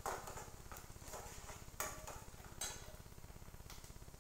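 A spoon scraping and clanking against a kadai while onions and green chillies are stirred in oil. There are sharp knocks at the very start, about two seconds in, and again a little later.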